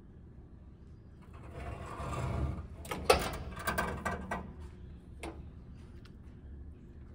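A rustling swish, then a quick cluster of sharp mechanical clicks and rattles about three seconds in, and one more click a second or so later, over a low steady hum.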